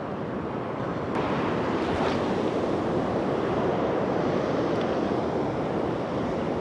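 Ocean surf breaking and washing up the beach in a steady rush, swelling louder about a second in.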